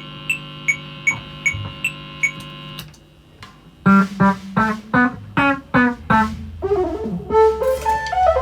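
Metronome clicking at a steady fast tempo over a held keyboard chord, then after a short gap a band starts playing: keyboard and guitar notes, with an electric bass coming in a couple of seconds later.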